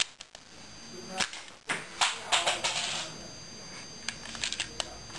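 Plastic clicks and rattles of a Lego brick bolt-action pistol being handled up close, loudest in a busy cluster about two seconds in, then a few separate sharp clicks near the end.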